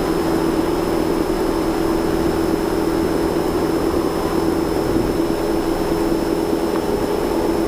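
Cozy III canard aircraft's pusher engine and propeller at full power during the takeoff roll, a loud, steady drone.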